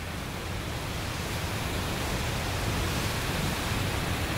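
Floodwater rushing as white water over a small mill-stream weir: a steady, even rush that grows slightly louder.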